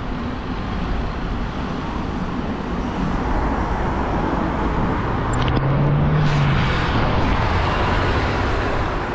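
Road traffic heard from a moving bicycle: a steady rush of passing cars and riding noise, with one vehicle's engine hum swelling and fading as it passes close a little past halfway.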